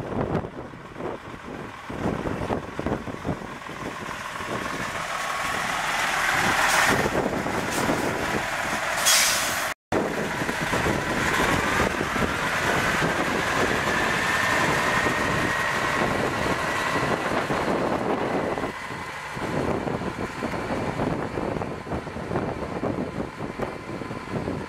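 2003 Freightliner ST120's Detroit Series 60 12.7-litre six-cylinder diesel running as the semi tractor drives, with a short sharp hiss of air from the air brakes about nine seconds in. After a brief gap in the sound, the engine pulls away with a whine that rises over several seconds.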